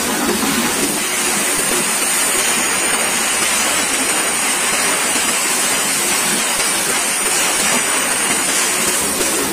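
Freight wagons rolling over the track, heard from between the rails right under them: a steady, loud rush of wheels running on the rails, with a thin high-pitched tone running through it.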